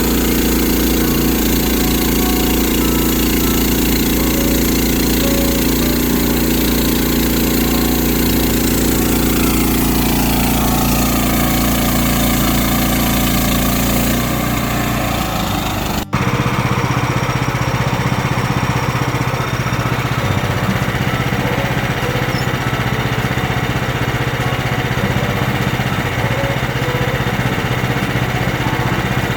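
Engine running steadily, its note shifting slowly partway through; about two thirds of the way in the sound cuts abruptly to a different, rougher-running engine.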